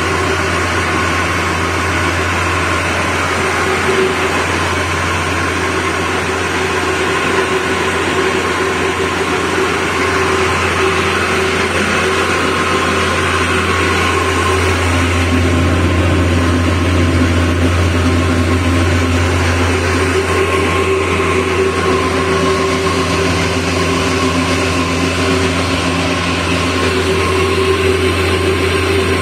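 Victor mini stone flour mill running steadily: its electric motor gives a constant low hum under the rasp of the grinding stones milling grain into fine flour.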